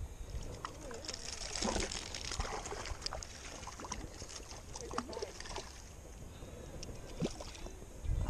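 Water splashing and sloshing at a rocky lake edge as a hooked rainbow trout is reeled in and landed, with scattered clicks and knocks from the spinning reel and rod handling.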